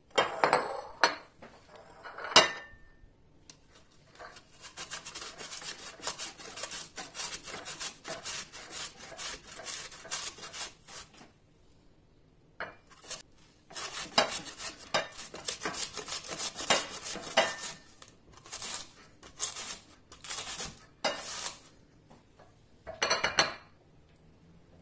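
Raw potato grated on a stainless-steel box grater, a fast run of rasping strokes that pauses briefly and resumes as slower, separate strokes. Two sharp clinks of china plates at the start.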